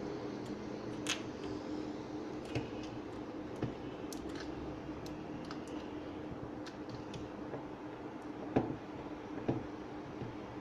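Scattered light clicks and taps over a steady low hum, the loudest tap about two-thirds of the way through.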